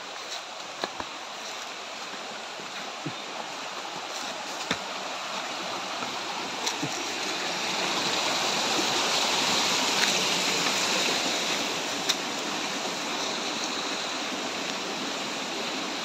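Rushing water of a rocky stream at a waterfall, a steady hiss that grows louder toward the middle and then eases slightly. A few short knocks stand out here and there.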